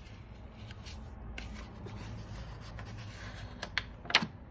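Paper pages of a picture book being handled and turned by hand: soft rubbing and sliding, with a few light clicks and a sharper paper snap near the end.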